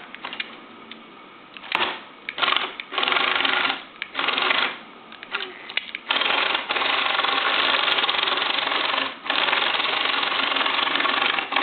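Lego Technic electric motors whirring through their plastic gears and tracks as the remote-controlled tracked vehicle is driven. Short starts and stops in the first half, then longer steady runs in the second half.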